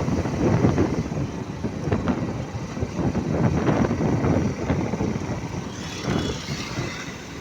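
Road-vehicle rumble with wind buffeting the microphone, the level rising and falling unevenly.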